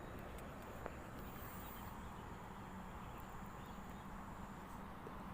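Faint outdoor background: a steady low rumble and hiss, with a thin, high, steady tone that stops about four and a half seconds in.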